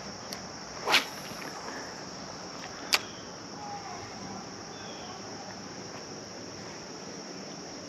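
Steady rush of creek water under a continuous high trill of insects, likely crickets. A brief swish about a second in and a sharp click about three seconds in.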